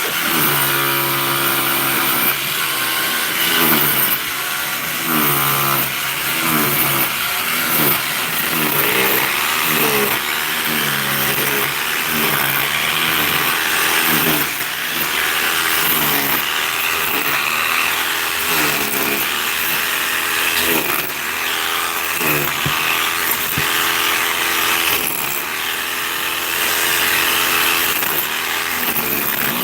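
A power tool's motor running steadily, its pitch dipping and recovering over and over, every second or so.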